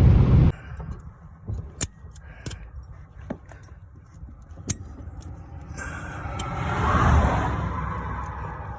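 A low vehicle drone cuts off suddenly. A few scattered sharp clicks and knocks follow, and near the end a passing car swells and fades.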